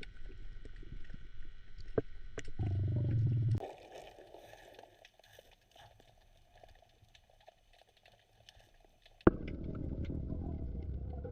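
Muffled underwater noise picked up through a camera's waterproof housing: low rumbling with scattered clicks, a louder rumble about three seconds in, then a quieter stretch, and a sharp click near the end before the rumbling returns.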